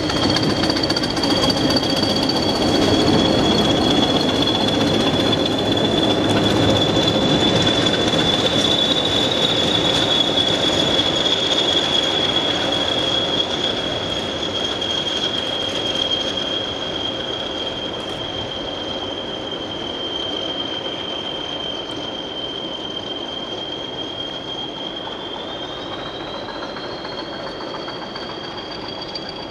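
A pair of English Electric Class 20 diesel locomotives running light, their wheels giving a steady high-pitched squeal with a second squeal above it that wavers in pitch. A low diesel rumble underneath dies down within the first few seconds, and the whole sound slowly fades as the locomotives draw away.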